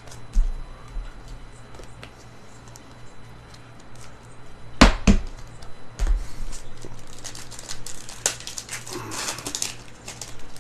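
Trading-card packaging being handled and opened: scattered clicks and a sharp knock about halfway through, then a few seconds of crinkling and tearing of a plastic pack wrapper.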